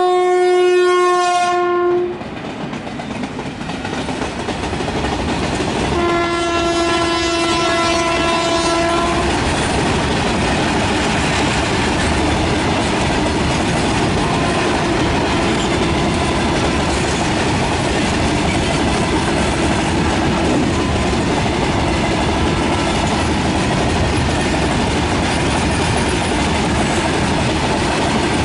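Twin WAG5 electric freight locomotives sounding their horn: one long blast that cuts off about two seconds in, and a second long blast a little lower in pitch from about six to nine seconds. After the second blast, the loaded freight wagons keep rumbling and clattering past over the rail joints.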